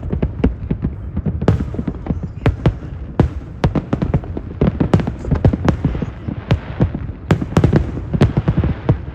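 Aerial fireworks shells bursting in quick, irregular succession, about two to three sharp bangs a second over a continuous low rumble.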